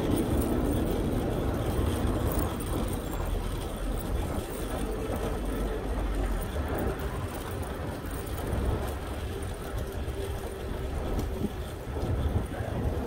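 Steady city vehicle noise: a low rumble under a hiss, louder at the very start and fading.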